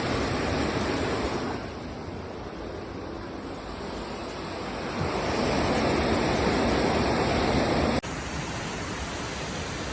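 Floodwater rushing, a dense steady roar that swells partway through, then cuts off abruptly about eight seconds in to a quieter stretch of similar water noise.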